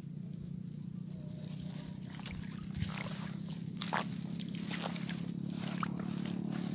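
Footsteps sloshing and squishing through shallow seawater over a seaweed-covered reef flat at low tide, with short splashes that come more often after about two seconds, over a steady low rumble.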